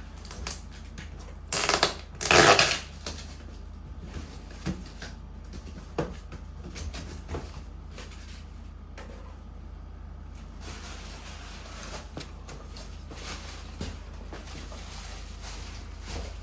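Cardboard box and packaging handled as a telescope tripod is pulled out: two loud scraping rustles about two seconds in, then scattered light knocks and rustles.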